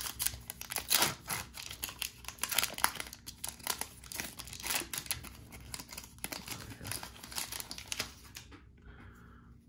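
Plastic wrapper of a Topps baseball card pack being torn open and crinkled by hand, a dense run of crackles that dies away about eight seconds in.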